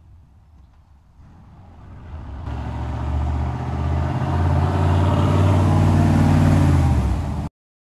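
Full-size pickup truck's engine running close by, growing louder from about two seconds in with a steady low note. The sound cuts off suddenly near the end.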